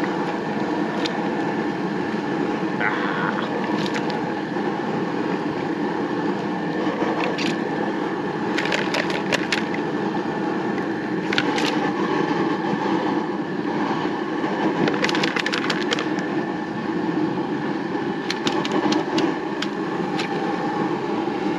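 Gas jet burner running steadily under a big pot at a rolling boil. Clusters of sharp clicks and cracks come several times as live marron are taken from the bowl and dropped into the pot.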